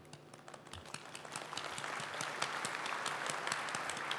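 Large audience applauding: a few scattered claps at first, swelling into full, steady applause within about two seconds.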